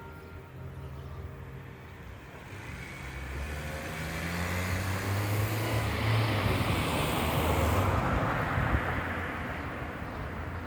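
A car drives past: its engine hum and tyre noise build over several seconds, are loudest a little after the middle, then fade away.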